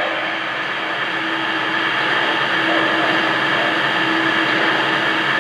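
O-gauge model train running on three-rail track: a steady rolling rumble of wheels on the rails with the hum of the locomotive's motor.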